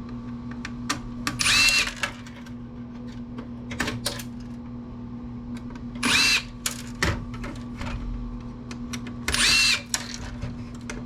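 A power drill-driver spinning three times in short bursts, each about half a second, backing out steel case standoffs, with small clicks of the parts being handled between the bursts.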